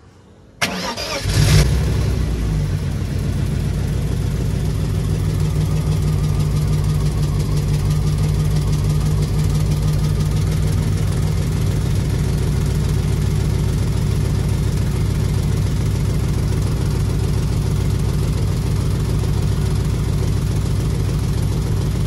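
BMW E34 wagon's swapped S50 inline-six cranks briefly about half a second in, catches and settles into a steady idle. It is the idle of an engine diagnosed as misfiring, with cylinders 5 and 6 suspected of low compression.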